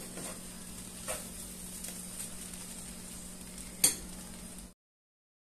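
A metal spoon stirring and scraping cooked beef pilau in a pot on the stove, with a steady sizzle underneath. About four seconds in, the spoon clinks sharply against the pot. The sound cuts off abruptly near the end.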